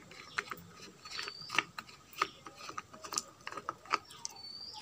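Plastic spinner cap of a pedestal fan being unscrewed by hand from the threaded motor shaft: a run of irregular small clicks and rasps from the plastic threads.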